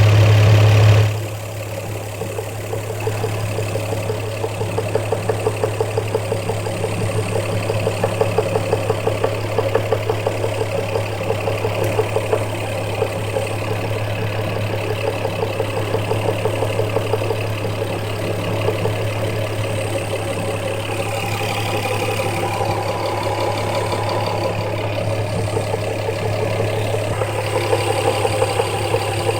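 Toyota 1JZ VVTi 2.5-litre inline-six idling steadily with a fast, regular knock riding on the engine sound, which the owner takes for engine knock. It runs louder for about the first second, then settles to an even idle.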